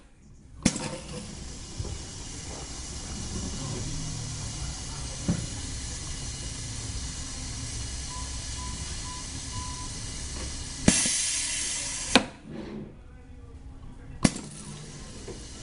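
Piston liquid-filling machine cycling as it doses soap into plastic bottles. A click, a long stretch of steady running noise, then a loud burst of air hiss that ends in a sharp click about eleven seconds in, and another click with a short hiss near the end.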